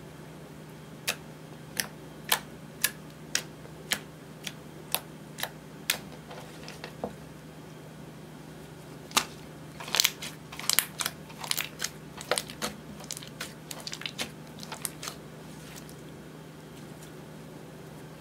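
Clear slime with eyeshadow mixed in being pressed and folded by hand, trapped air popping in sharp clicks: single pops about two a second at first, then after a pause a denser flurry of pops. A steady low hum runs underneath.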